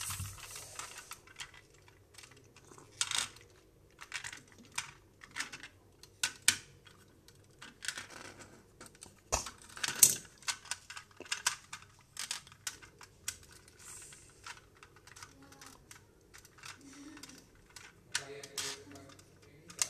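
Plastic toy fire truck handled by hand: irregular light clicks and taps of its plastic ladder and body, with the loudest snaps about ten seconds in.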